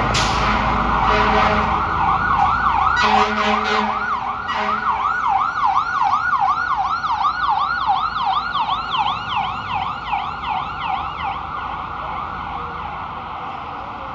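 Ambulance air horn giving a few short blasts, about three in the first four or five seconds, while an electronic siren starts a rapid yelp at about three sweeps a second. The siren then fades as the stroke-unit ambulance moves away.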